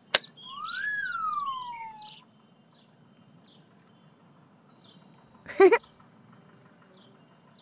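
Cartoon sound effects: a sharp click as the rotating beacon snaps onto the toy sweeper's roof, then a sparkling chime with a whistle that swoops up and back down. Faint bird chirps follow, and a short, loud pitched blip comes about five and a half seconds in.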